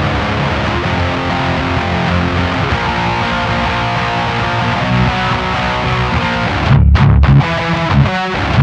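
Distorted electric guitar riffing through a Diezel VH4 tube amp with a Sovtek 12AX7WA preamp tube and EH 6CA7 power tubes. The tone is hard, with sharp highs and solid low end. Near the end it moves to louder low chugs that cut off sharply.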